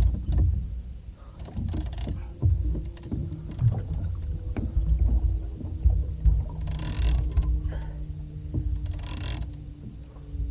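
Small boat at sea: constant low rumble with a faint steady hum, and short hissing bursts about two, seven and nine seconds in.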